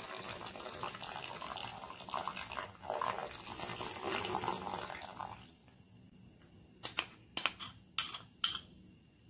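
Cornflour-and-water paste poured in a stream into a pot of boiling soup: a steady liquid splashing and bubbling for about five seconds that then stops. Near the end come four or five sharp clicks, like a utensil knocking on the pot.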